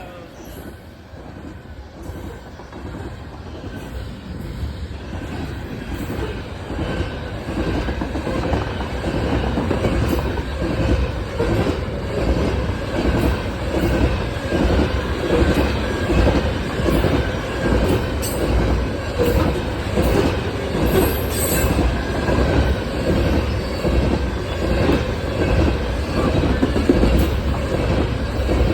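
Coal train rolling past: the wheels of the freight cars clatter rhythmically over the rail joints, growing louder over the first ten seconds or so and then holding steady. A faint high wheel squeal rides over the rumble.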